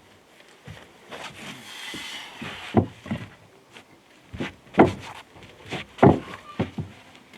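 Thick wooden boards being handled: a scraping slide, then a few irregular hollow knocks and thuds of wood on wood.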